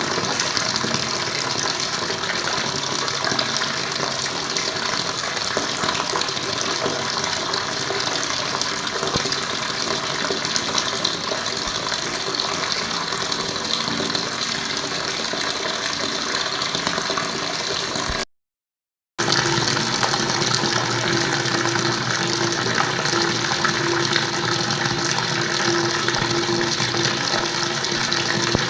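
Water running and splashing steadily. About two-thirds of the way through it cuts out completely for about a second, then resumes with a steady hum underneath.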